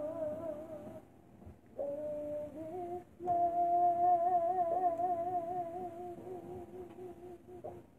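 Wordless humming of long, wavering held notes over fainter steady tones. It breaks off about a second in, resumes, and fades toward the end.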